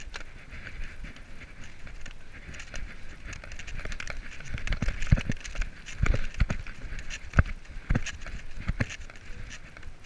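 Mountain bike riding fast down a leaf-covered dirt trail: tyres rolling over dry leaves and earth and the bike rattling, with many sharp knocks and a cluster of heavier thumps over bumps around the middle.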